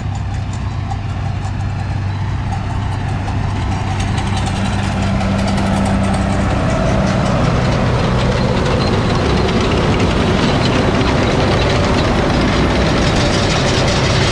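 Farm tractor engine running steadily while driving a round baler in the hay field. It grows gradually louder over the first few seconds, then holds an even drone.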